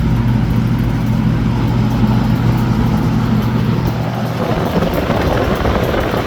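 Vintage McGraw-Edison Eskimo box fan running, its electric motor giving a steady hum over the rush of air from the blades. About two-thirds of the way through, the hum fades and the rushing air noise grows louder.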